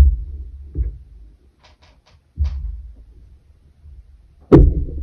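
Handling noise from hands and tools on a wooden pin loom and the tabletop: three dull thumps, the loudest near the end, with a few faint light clicks in between.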